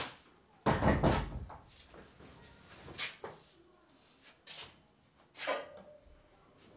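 Household knocks and thumps: a sharp click, then a heavy thud about a second in, then three lighter knocks about a second and a half apart, the last carrying a short squeak.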